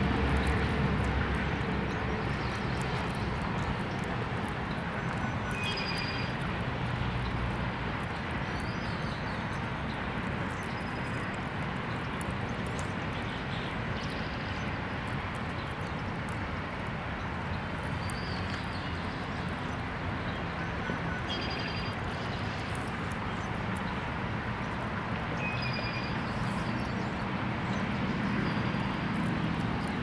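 Steady outdoor rumble like distant road traffic, a little louder at the start and near the end. Short, high bird chirps come every few seconds over it.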